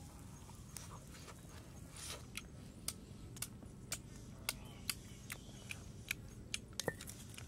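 Close-up chewing of food, a run of sharp crunching clicks about two to three a second.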